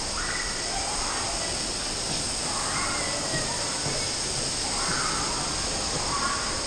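Indoor water-park hall ambience: a steady rushing noise with distant voices and shouts now and then.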